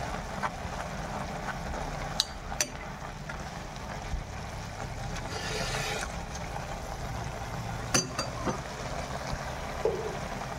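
Leafy greens sizzling as they stir-fry in a black wok. A metal spoon stirs them, clicking sharply against the pan a few times.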